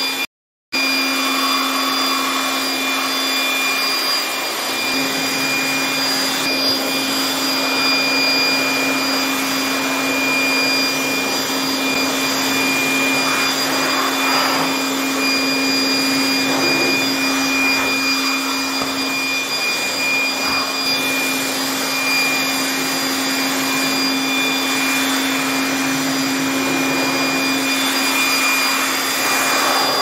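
DeWalt handheld electric blower running steadily, a rush of air with a constant high motor whine, blowing water out of a split air conditioner's freshly washed indoor coil. The sound drops out briefly about half a second in.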